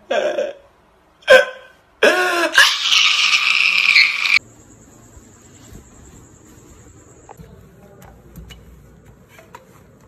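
Comedic meme clip of a man crying out: a short cry, then about two seconds of loud, wavering wailing with harsh distortion that cuts off suddenly. After that only faint cloth handling with small clicks.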